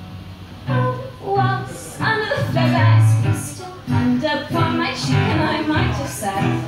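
Live acoustic song: a woman singing to her own digital piano, with an acoustic guitar played alongside. A held piano chord fades at the start, and the voice and chords come back in under a second in.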